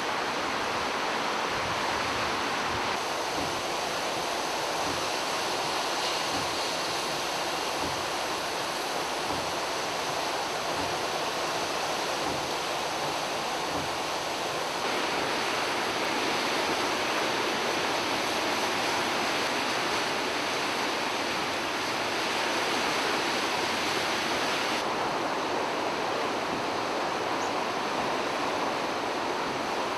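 Steady, even rush of a rain-swollen river running high after a typhoon's heavy rain, close to overflowing its banks.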